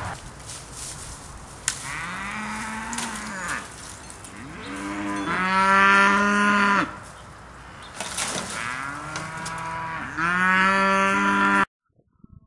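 Cattle mooing: four long calls, each rising and then falling in pitch, the loudest about halfway through. The sound cuts off suddenly near the end.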